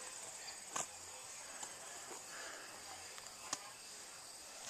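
Quiet outdoor background of insects chirping steadily, with two faint clicks, one about a second in and another about three and a half seconds in.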